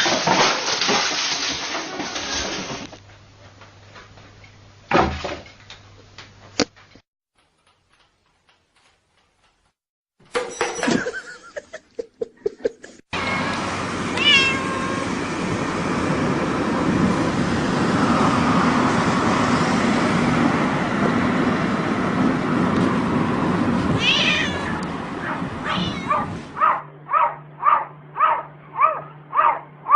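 Domestic cats meowing across a string of short clips, some calls heard over a steady background noise. Near the end a cat meows over and over, about two calls a second.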